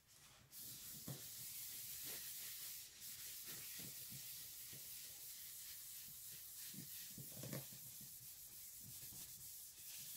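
Crumpled paper towel rubbed back and forth over the surface of a New Wave wooden artist's palette, a faint steady rubbing. It is working a thin liquid into the wood to tone it.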